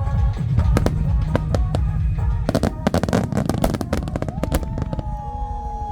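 Fireworks finale barrage: rapid bangs and crackling bursts over music playing for the show. The bursts are thickest about halfway through, then thin out as a long held musical note comes in.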